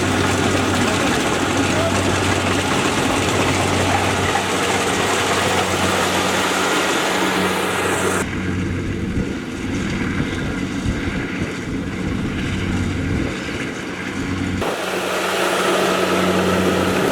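Rice combine harvester running steadily: an even engine hum under a wide mechanical rush. The high rushing part drops away for several seconds in the middle, then returns.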